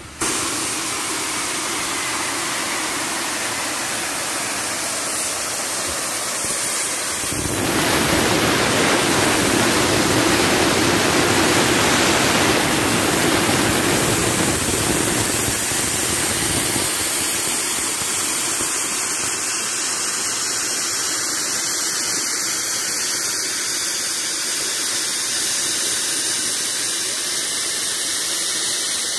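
LYR Class 23 0-6-0 saddle-tank steam locomotive blowing off steam through its safety valves: a loud, steady hiss that starts suddenly, swells louder about a quarter of the way in for around ten seconds, then eases back a little. The valves lift because the boiler is at full working pressure.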